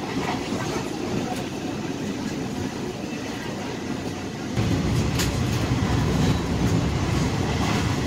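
Running noise of a fast-moving passenger train heard from inside the carriage: a steady rumble of wheels on the track. It grows louder and deeper a little past halfway, with a few faint clicks.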